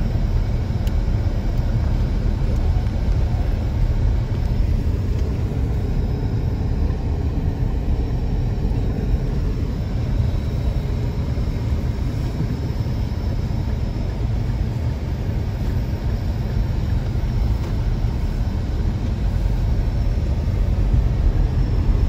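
Steady low rumble of a car driving, heard from inside the cabin: engine and tyre noise on a snowy road.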